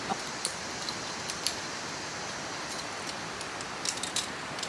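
Metal carabiners and zip-line harness hardware clinking a handful of times as a guide unclips the rider, over the steady rush of falling water from a waterfall.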